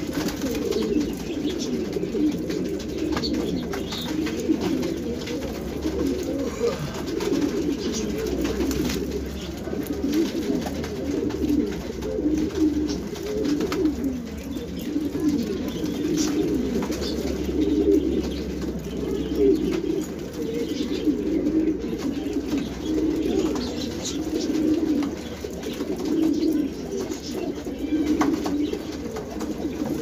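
Many domestic pigeons cooing at once in a steady, low, overlapping chorus, with faint scattered clicks.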